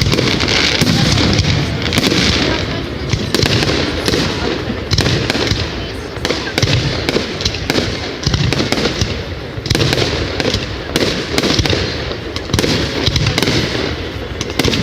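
Fireworks going off: a dense, continuous run of bangs and crackling pops.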